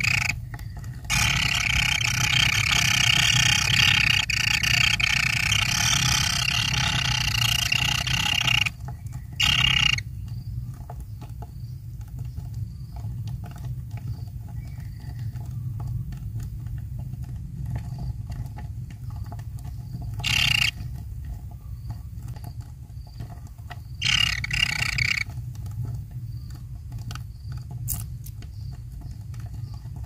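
Kingfisher nestlings in their burrow giving a loud, rasping begging chorus for the first nine seconds or so, then falling mostly quiet with short bursts of rasping calls about ten, twenty and twenty-four seconds in. A low steady rumble runs underneath.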